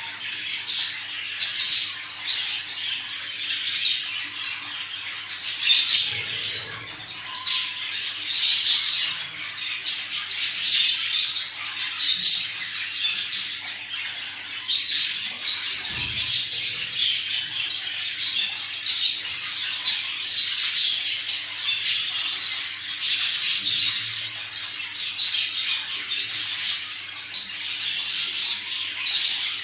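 Many budgerigars chattering at once: a dense, unbroken stream of short chirps and warbles, over a faint steady low hum.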